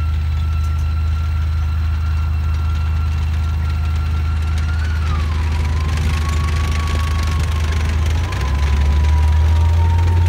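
Swiss Panzer 61 tank's V8 diesel engine running as the tank drives, a steady deep engine sound with a high whine that drops in pitch about halfway through. It grows louder from about eight seconds in as the tank comes closer.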